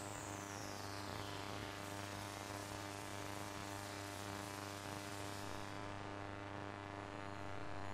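A steady electrical hum and buzz with many steady overtones. The hiss above it thins out about three quarters of the way through.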